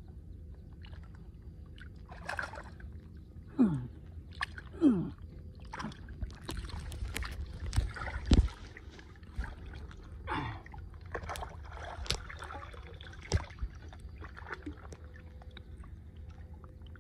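Muddy water sloshing and splashing around arms that dig by hand into a submerged earth bank, with irregular gurgles, plops and a few sharp knocks.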